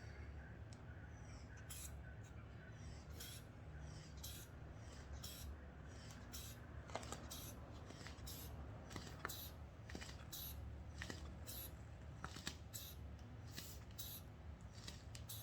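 Rubber inflation bulb of a blood-pressure cuff being squeezed over and over, each squeeze a short faint hiss of air, about one to two a second, as the cuff is pumped up on the arm.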